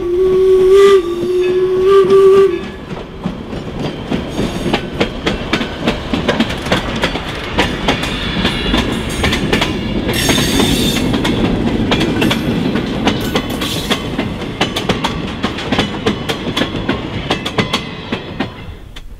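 Steam whistle of 4-4-0 steam locomotive York 17 blowing in short blasts, stopping about two and a half seconds in. Then the locomotive and its passenger coaches pass close by, with wheels clicking rapidly over the rail joints over a steady rumble and a brief hiss about halfway.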